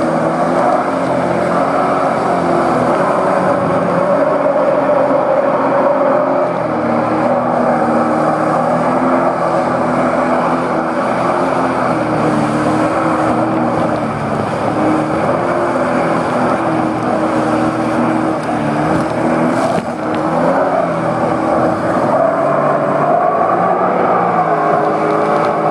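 Sea-Doo personal watercraft engine running under way, its pitch stepping up and down with the throttle, over a steady rush of water against the hull.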